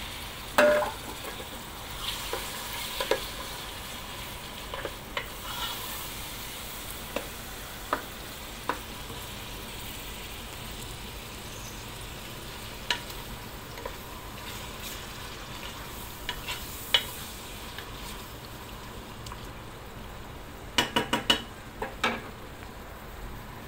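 Chicken pieces and vegetables frying in oil in a pot, a steady sizzle, while a wooden spatula stirs them, with scattered short knocks against the pot. A quick run of several knocks comes near the end.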